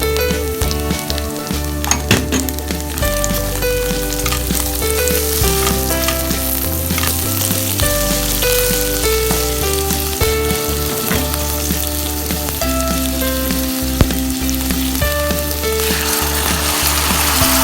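Food frying in a pan with a steady sizzle and a few sharp clicks, under background music with a stepping bass line.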